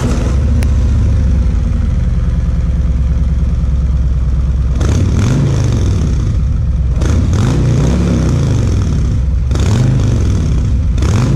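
Motorcycle engine running through its stock exhaust mufflers: idling steadily, then blipped on the throttle about four or five times from about five seconds in, each rev rising and falling.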